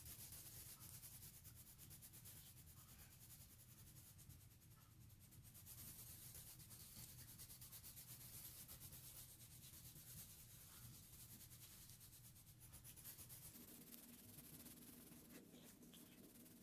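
Faint, rapid scratching of colour pencils shading on paper.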